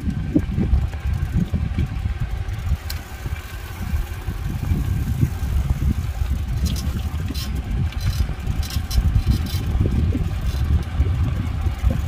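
Low, uneven rumble of wind buffeting the microphone and a canopied surrey bike rolling along a paved street, with a few faint clicks in the second half.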